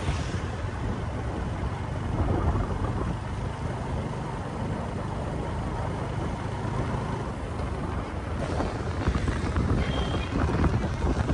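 Street traffic: motorbikes passing, with wind rumbling on the microphone. A motorbike passes close right at the start, and the traffic gets louder near the end.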